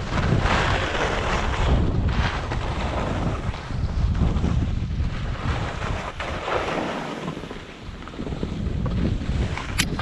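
Wind rushing over the microphone during a fast run down packed snow, the rush swelling and easing with speed. A few sharp knocks come right at the end.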